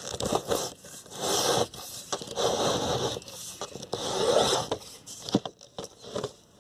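A fish rod scraping and rubbing in a hole drilled through vinyl siding as it is worked through the wall. There are a few longer scraping strokes with scattered sharp clicks between them.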